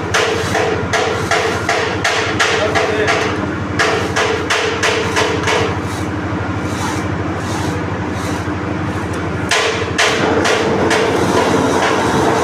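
Hammer striking repeatedly in quick runs of about three blows a second, with short breaks between the runs.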